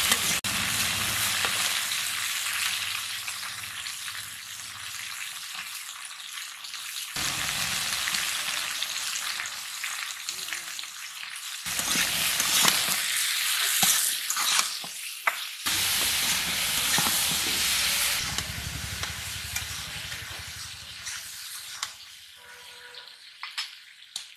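Chunks of raw green papaya frying in oil in an aluminium karahi, with a steady sizzle, while a metal spatula stirs them and scrapes and knocks against the pan, most clearly around the middle. The sizzle grows quieter near the end.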